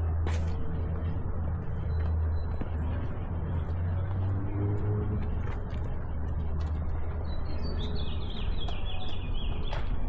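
City street ambience: a steady low hum and rumble, with a bird chirping a quick run of short notes near the end. A sharp click sounds just after the start.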